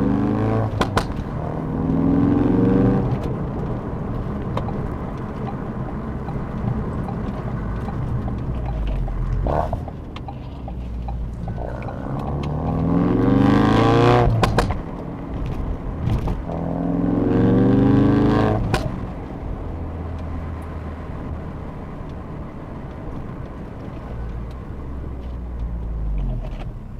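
Stock Ford Focus RS Mk3's 2.3-litre turbocharged four-cylinder exhaust, heard from under the car: the engine note rises in several pulls through the gears, and the exhaust pops on lifting off the throttle, twice near the start and once more later.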